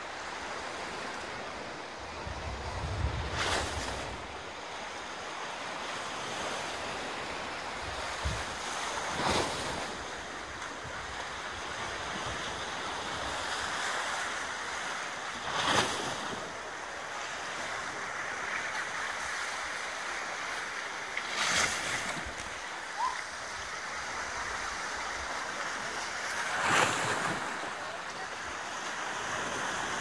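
Sea waves washing against a rocky shore: a steady wash with a louder splash about every six seconds. Wind rumbles on the microphone briefly a few seconds in.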